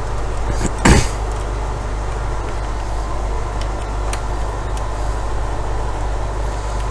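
Steady low hum under one sharp knock about a second in and a few faint clicks later, from a router and tools being handled on a workbench during a teardown.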